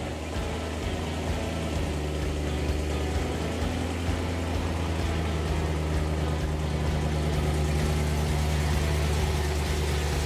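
BMW E90 M3's S65 V8 idling through its Eisenmann axle-back exhaust as the car rolls slowly out, a steady low note that grows a little louder as it comes closer.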